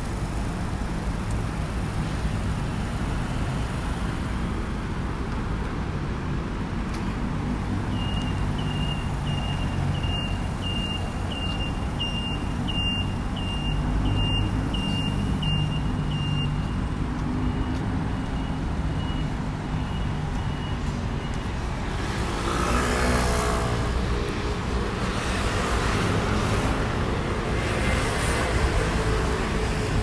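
Busy city-intersection traffic: a steady rumble of cars and engines idling and moving off. Through the middle a high electronic beep repeats about twice a second, then slower and fainter, and near the end the traffic noise swells as a vehicle speeds up past.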